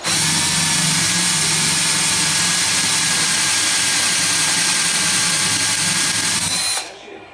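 Electric drill running steadily with a whine, boring a long 1/4-inch bit into a Powerglide transmission pump to open up the converter fill hole. It stops suddenly near the end.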